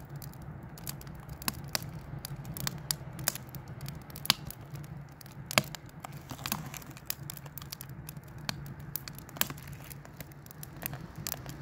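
Wood fire crackling in a small camping wood stove: irregular sharp pops, about a dozen scattered through, over a faint steady low hum.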